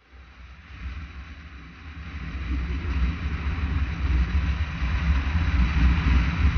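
Adventure motorcycle riding on a gravel road, heard from a camera on the bike: a low engine rumble under wind and tyre hiss, growing louder over the first few seconds and then holding steady.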